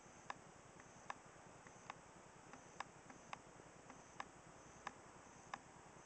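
Near silence with faint, sharp ticks, roughly one every three-quarters of a second, somewhat unevenly spaced.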